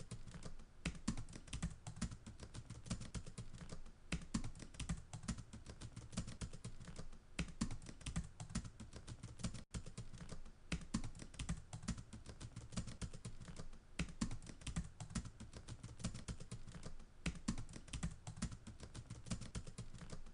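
Continuous fast typing on a keyboard: a dense stream of irregular key clicks with low thuds, broken only by a split-second dropout a little before halfway.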